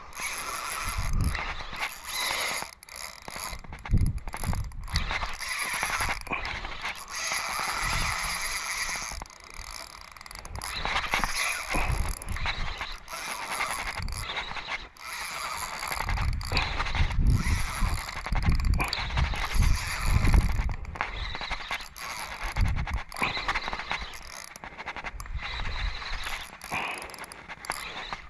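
Spinning reel being cranked steadily, its gears whirring as a hooked fish is reeled in, with gusts of wind thumping on the microphone.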